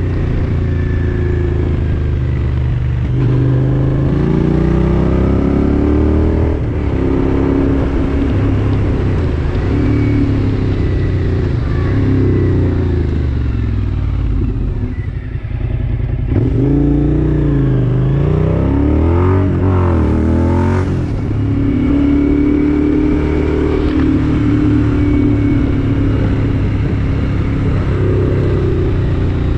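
A motor vehicle's engine under way up a winding grade, its pitch rising and falling repeatedly with throttle and gear changes. About halfway through it briefly drops off, then revs up in several quick rising sweeps.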